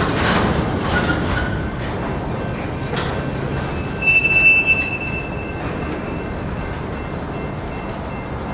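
Empty covered hopper cars of a freight train rolling slowly past, with occasional clicks from the wheels over rail joints. About four seconds in, a high metallic squeal rings out for about a second, the loudest sound here, then fades.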